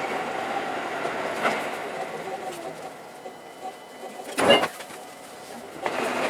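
Seibu Shinjuku Line electric train running on the rails, a steady rumble that eases off partway through, with one loud, brief clatter about two-thirds of the way in.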